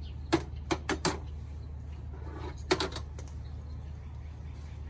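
Sharp clicks and knocks of beehive parts being handled: four quick ones in the first second or so, then two more close together a little before the middle.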